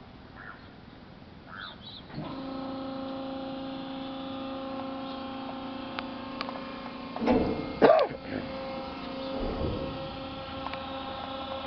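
The pontoon bridge's electric hydraulic pump motor switches on about two seconds in and hums steadily, powering the hydraulics that work the bridge. Two brief louder sounds come just past halfway.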